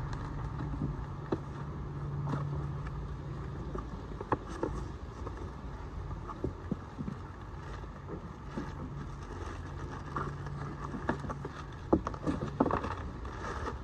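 Cardboard box being opened and a plastic-wrapped brake rotor lifted out: scattered rustles, crinkles and light knocks, the sharpest near the end. Under them runs a steady low hum.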